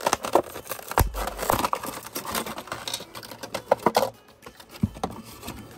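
Clear plastic blister packaging of a boxed die-cast toy car set being pulled apart by hand: irregular plastic clicks, crinkles and snaps, with a sharp knock about a second in, thinning out over the last couple of seconds.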